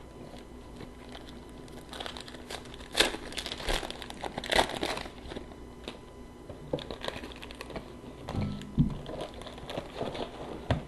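Plastic trading-card pack wrapper crinkling as it is torn open and handled, with cards shuffled by hand; the loudest crackles come about three and four and a half seconds in.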